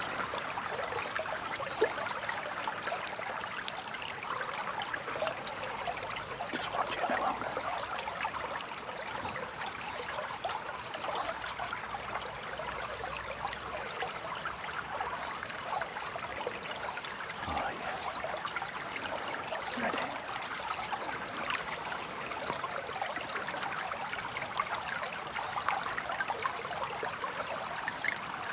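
Small stream trickling over fallen branches and sticks, a steady running-water sound.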